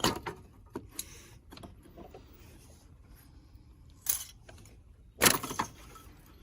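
Metal clinks and scrapes of hand tools and engine parts being handled during an ATV engine's top-end teardown: a sharp knock at the start, a few light ticks, and a louder clatter about five seconds in.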